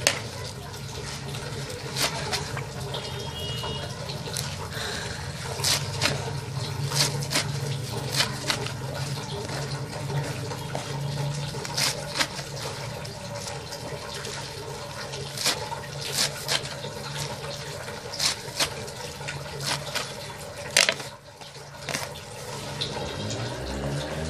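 A knife chopping leafy greens on a metal tray: irregular sharp knocks of the blade striking the tray. Under them runs a steady hum and hiss.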